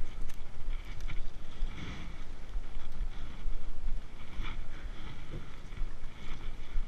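Wind buffeting an action camera's microphone as a low, uneven rumble, with irregular brief rustling and scuffing over it.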